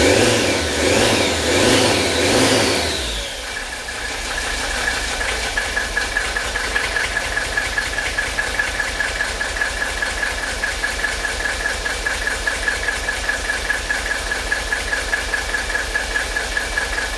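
Mercedes OM617 five-cylinder turbo-diesel running. It is revved for the first few seconds, then settles to a steady idle with an even diesel knock. The engine is freshly started, with its injection pump set to the factory mark but not yet drip-timed.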